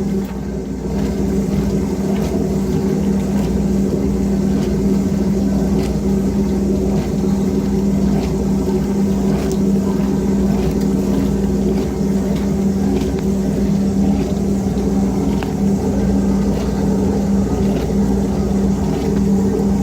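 1962 Norge washing machine running, its motor giving a steady hum with faint irregular ticks over it.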